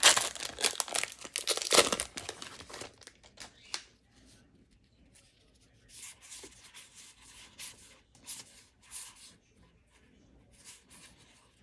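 Foil wrapper of a Magic: The Gathering booster pack being torn open and crinkled for the first two seconds or so. After that come faint rustles and slides as the stack of cards is fanned and flipped through in the hands.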